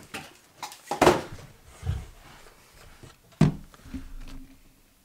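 Handling noises at a workbench: several separate knocks and thumps of hard plastic cordless tools being picked up and set down. The loudest come about a second in and about three and a half seconds in.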